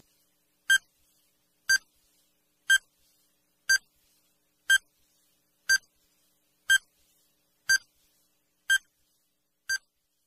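Countdown timer sound effect: short electronic beeps, one every second, ten in all, with silence between them.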